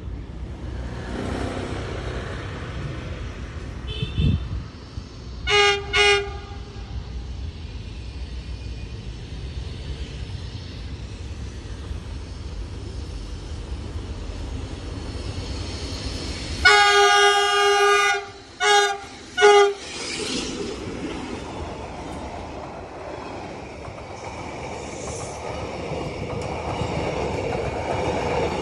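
Diesel locomotive horn: two short blasts about five and a half seconds in, then a long blast followed by two short ones about seventeen seconds in, as the train approaches. Near the end the rumble of the train grows as the passenger coaches run past.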